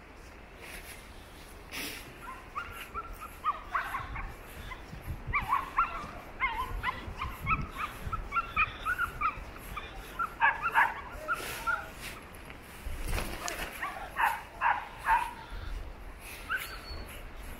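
A dog giving a long string of short, high yips and whines in bunches with brief gaps, over a low steady rumble.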